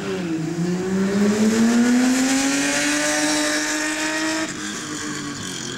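Competition car's engine revving hard under acceleration, its pitch climbing steadily, then dropping abruptly about four and a half seconds in and running on at lower revs.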